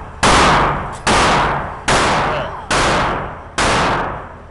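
Five gunshots fired at a steady pace, a little under a second apart, in an indoor shooting range. Each shot is loud and sharp, with a long echo off the concrete lane walls that fades before the next.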